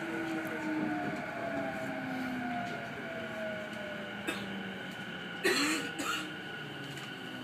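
Inverter and traction-motor whine of a JR East E233 series electric train, falling steadily in pitch as the train brakes into a station, with wheel and rail noise heard inside the car. A brief loud burst about five and a half seconds in.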